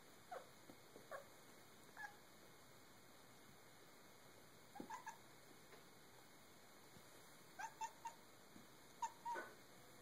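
Domestic cat making a dozen or so short, bark-like chirping calls in small clusters, some gliding in pitch, the excited chatter of a cat chasing a sunlight reflection.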